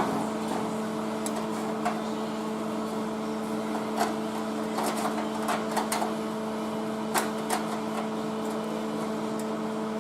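A steady machine hum, with light clicks and taps here and there.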